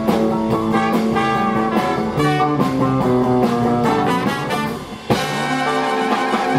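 Live jazz band playing an instrumental passage with guitar and horns. Just before five seconds in, the sound thins out briefly, then the band comes back in with a loud accented hit.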